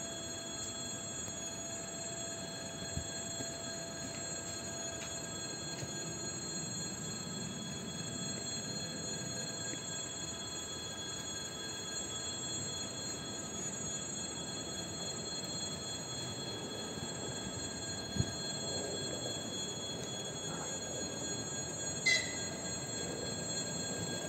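EG2Tv Ivolga 2.0 electric train approaching on the rails: a low rumble of wheels on track that grows louder over the last several seconds. Faint steady high-pitched tones sound throughout, with a thump about 18 seconds in and a sharp click about 22 seconds in.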